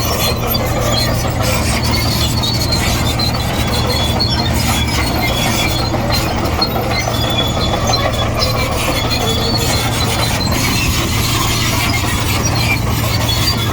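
Komatsu D58E crawler bulldozer working: a steady diesel engine drone with scattered high-pitched squeals and squeaks from its steel tracks.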